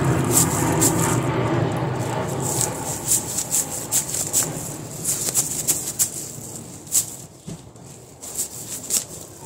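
Nylon pantyhose stretched and dragged over a pineapple's rough skin: a rustling scrape that fades over the first few seconds, with sharp, irregular crackling snaps as the hose catches on the fruit.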